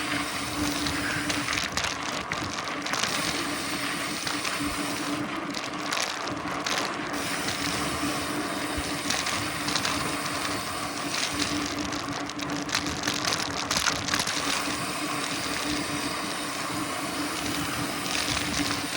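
Mountain bike rolling fast over a dirt trail: steady tyre noise and the rattle of the bike, with a constant low hum under it and scattered clicks.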